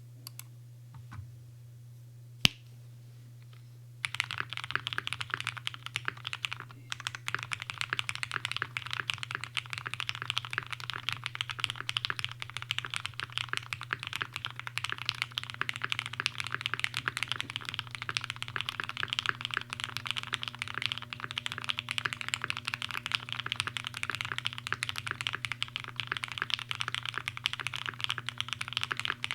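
Typing on a custom mechanical keyboard with lubed Cherry MX Black linear switches in an aluminum half plate, O-ring mounted, with gaffer tape under the PCB. A few separate key clicks and one sharp louder click come first; steady fast typing starts about four seconds in and runs on.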